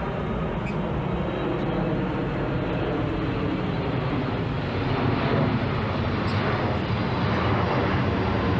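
Passing aircraft: an even, steady engine noise that slowly grows louder.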